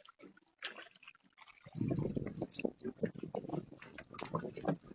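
Water splashing and dripping, faint at first, then a dense run of irregular knocks and rustling from about two seconds in.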